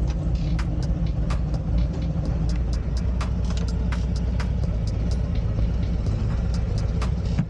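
Harley-Davidson V-twin touring motorcycle engine running with a steady low rumble, with irregular short ticks over it.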